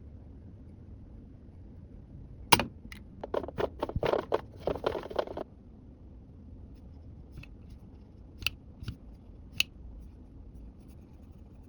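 Small plastic toy pieces and packaging being handled: one sharp click, then about two seconds of quick clicking and rustling, then a few scattered clicks near the end.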